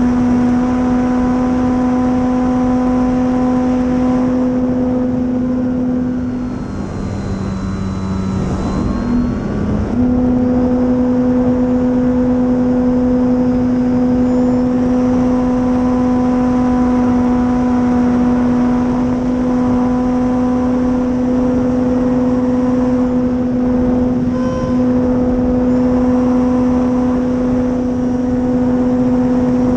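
Dualsky 480 brushless electric motor and propeller of an RC warbird, heard from the onboard FPV camera: a steady whine over wind rush. About a third of the way in the pitch and level drop for a few seconds, then come back up.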